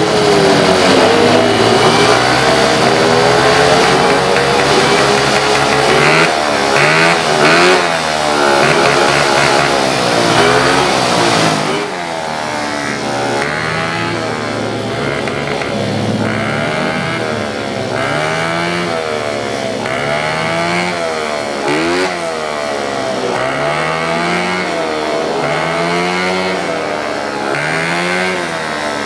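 Race-built 130cc Yamaha Mio J scooter engine, a single-cylinder four-stroke, being revved while it is set up. It is held at high revs and wavers for the first dozen seconds, then blipped up and down over and over, about every second and a half.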